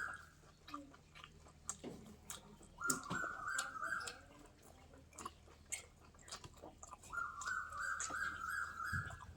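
A dog whining twice, each a high, wavering whine lasting about a second and rising slightly, with scattered soft clicks of chewing between.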